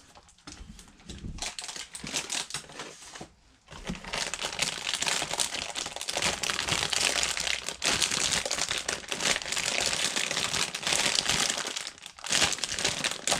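Plastic bags of model-kit parts crinkling as they are handled and opened, a dense crackle that is quieter and patchy for the first few seconds, then steady from about four seconds in, with a brief pause near the end.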